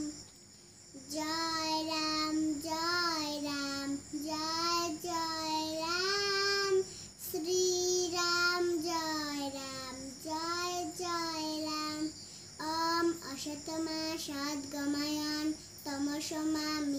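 A young girl singing a Hindu prayer song alone, with no accompaniment, in sung phrases of long held notes separated by short pauses for breath.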